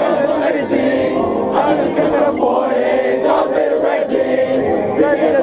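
Concert crowd chanting and singing along, many voices at once, over loud live rap music.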